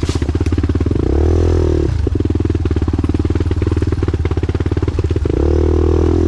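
Single-cylinder four-stroke trail bike engine chugging at low revs on a steep, rocky uphill climb. The revs rise twice with short bursts of throttle, about a second in and again near the end.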